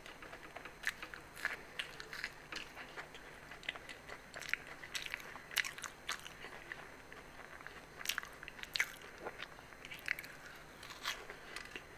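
Close-miked chewing and crunching of crisp fried aloo samosa pastry: irregular sharp crackles throughout, with a fresh bite taken near the end.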